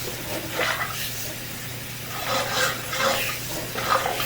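Water running through a drain line in irregular splashing surges, over a steady low hum.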